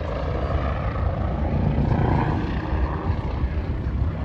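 Aircraft engine noise from a plane flying past, a low, dense rumble that swells to its loudest about two seconds in and then eases off.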